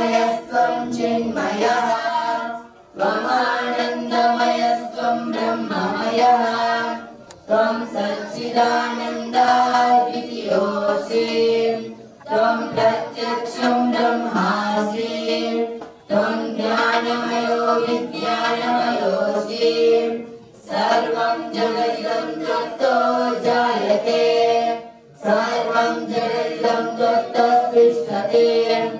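Two young men's voices singing a devotional chant together, unaccompanied, in phrases of about four seconds with short breaks for breath between them.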